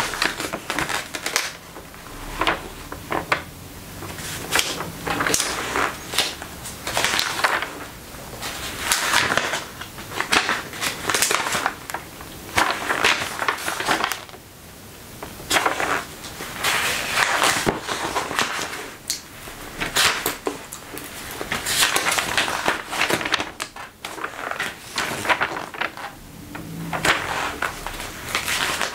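Pages of a large glossy magazine being turned and handled: a string of papery swishes and crackles, one every second or so, mixed with the creak and rustle of a leather jacket and trousers as the arms move.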